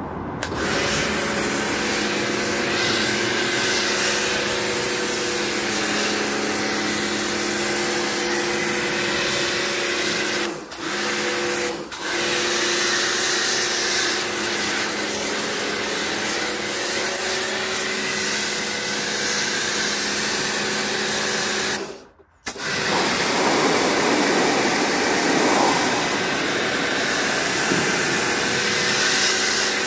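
Pressure washer running, its jet of water spraying onto a washing machine's outer tub, a steady machine hum under a hiss of spray. The spray dips twice briefly around ten to twelve seconds in, cuts out for about half a second about two-thirds of the way through, then starts again.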